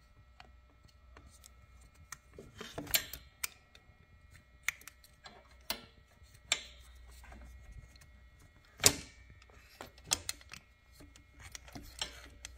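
Irregular clicks and light taps of a carburetor and its throttle cable being handled while the cable end is worked into the carb, with one sharper click about nine seconds in.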